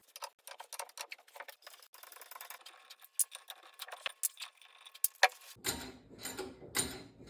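Rapid, irregular light metallic clicking from the rear wheel assembly of a 1969 VW Beetle, the click being chased down, with a duller, fuller sound replacing it near the end.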